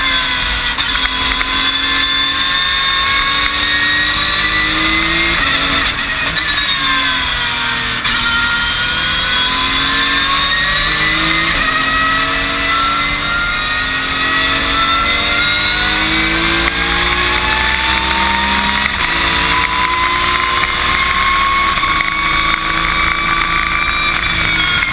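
Porsche 911 GT3 Cup race car's naturally aspirated flat-six engine at speed, heard from inside the stripped cockpit. Its pitch falls for a few seconds about five seconds in, then climbs long and steadily almost to the end.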